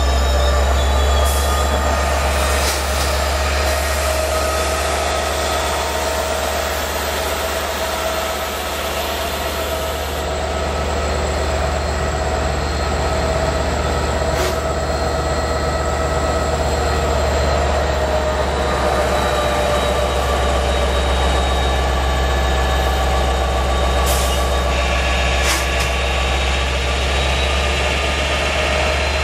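LIRR DE30AC diesel-electric locomotive running close by: a steady low engine hum with steady higher tones above it, and a few short clicks.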